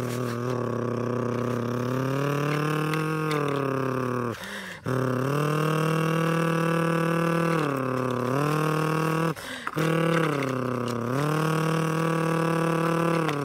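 A person imitating a truck engine with their voice while playing: a long, low hum that rises and falls slowly in pitch, breaking off twice for breath.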